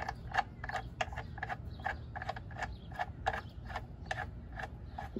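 Ratchet wrench clicking in a steady rhythm, about three clicks a second, as a bolt under the truck is turned.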